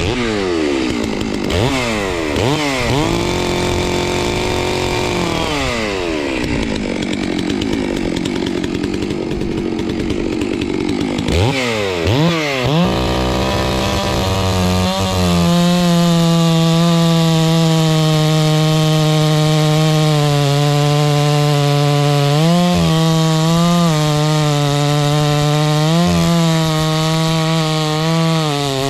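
Chainsaw revving up and down, dropping to idle for a few seconds, then revving up again and running at steady high revs through the second half, with two brief dips near the end: bucking a log to length.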